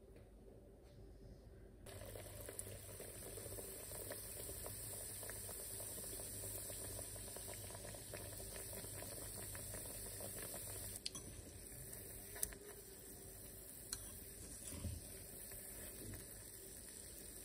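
Yeast doughnuts frying in hot oil in a saucepan: a steady sizzling hiss that starts suddenly about two seconds in and carries on, with a few light clicks in the second half.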